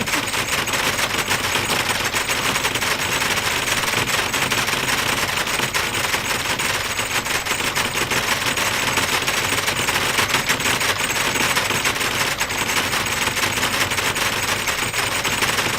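Continuous rapid rattling clatter: a dense, unbroken train of many clicks a second, loud and steady throughout.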